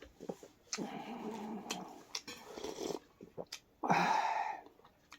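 A person eating hot noodle soup: wet slurping and mouth noises with short sharp clicks, and one loud slurp about four seconds in.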